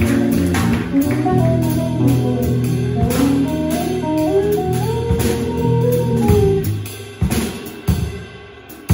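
Jazz trio of hollow-body electric guitar, electric bass and drum kit playing together. About seven seconds in, the guitar and bass stop, leaving a few separate drum hits.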